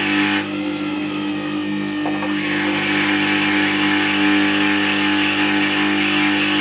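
A Record Power WG200 wet stone sharpener runs with a steady motor hum while a dressing stone is held against its turning grindstone, giving a scraping hiss. This is dressing the wheel with the stone's finer side to polish off the grinding face. The hiss eases about half a second in and comes back about two seconds in.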